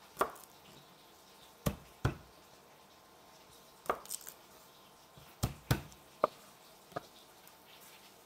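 Kitchen knife chopping garlic on a wooden chopping board: about nine sharp, irregular knocks of the blade striking the board, some in quick pairs.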